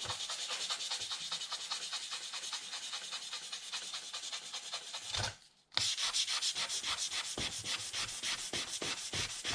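Fine 600-grit sandpaper rubbed by hand in quick, even strokes, about five a second, over the painted body of a scale RC Jeep Cherokee, wearing the paint back for a faded patina. The strokes stop for about half a second a little past halfway, then carry on.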